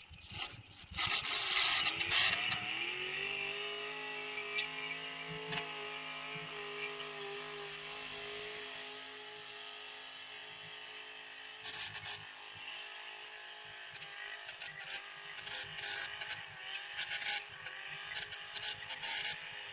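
Diesel pickup truck engine at full throttle dragging a weighted pull sled. After a burst of noise at launch it revs up about two seconds in, holds a steady pitch for roughly ten seconds, then falls away about twelve seconds in as the pull ends, leaving fainter engine sound and scattered clicks.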